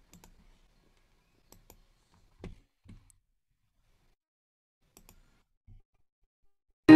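Near silence broken by a few faint, scattered clicks. Right at the end a loud, held musical tone with a rich set of overtones starts abruptly.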